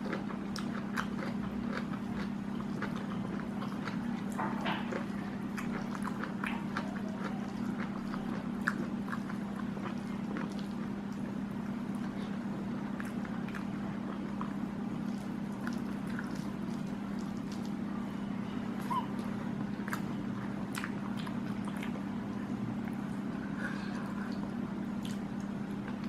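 Close-up eating sounds: chewing, lip smacks and small wet clicks as squid and rice are eaten with the fingers, over a steady low hum.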